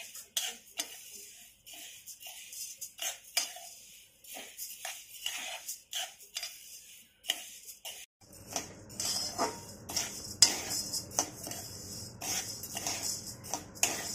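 A spatula scraping and clinking against a kadhai as urad and moong dal are stirred while roasting, in irregular strokes.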